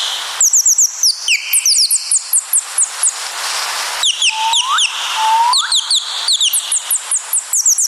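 Birdsong: quick runs of short, high chirps that each drop in pitch, several a second, with two lower rising whistles about four and five seconds in.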